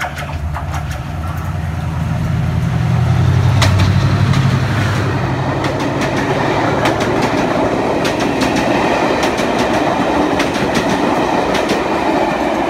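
A ScotRail HST passing close by: the Class 43 power car's diesel engine hums loudly for the first few seconds, then the coaches rumble past with quick wheel clicks over the rail joints.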